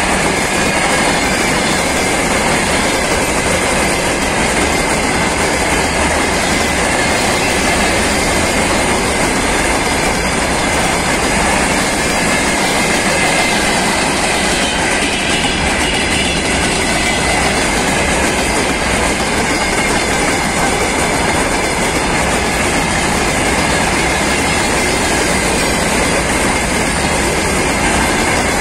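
Freight train wagons rolling past close by: a loud, steady rumble of wheels and bogies running on the rails.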